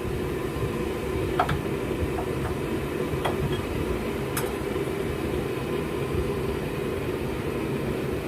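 Home-built propane forge running on a single burner with a MIG-tip orifice and no damper, a steady low rushing noise of the burning gas, with a few faint clicks.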